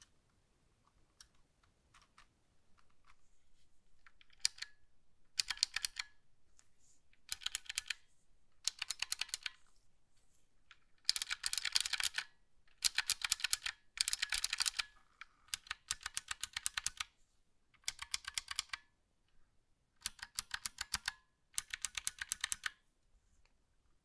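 Razer Huntsman Mini optical-switch keyboard being typed on: about a dozen short runs of rapid key clicks, each lasting up to about a second, separated by brief pauses.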